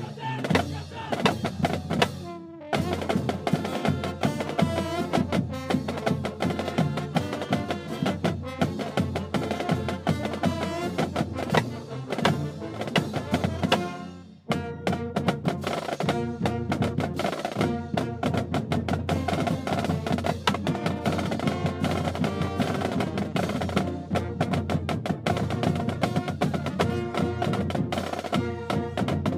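College marching band playing an upbeat tune on brass, saxophones, sousaphones and drums, with a steady drumbeat. The music drops out briefly about halfway through, then starts up again.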